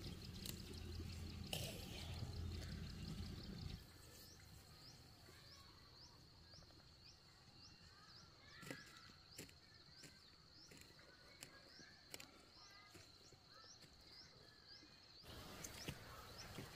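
Faint outdoor ambience: a high chirp repeating about twice a second, with scattered small clicks, and a low rumble that stops abruptly about four seconds in.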